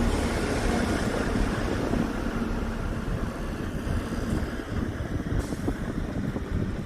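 A large engine running steadily under heavy wind buffeting on the microphone, easing off slightly near the end.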